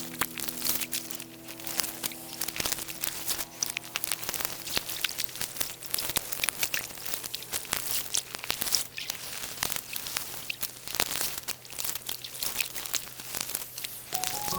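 Dense, irregular crackling and crunching of plant material being handled, crumpled and torn, with faint background music tones fading out in the first few seconds.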